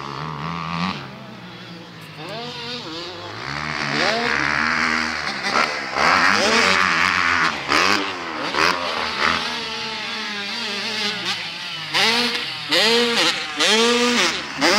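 Motocross dirt bike engines revving up and down again and again as the riders work the throttle over the track's jumps and rollers. The revving comes in louder, quick bursts in the last few seconds.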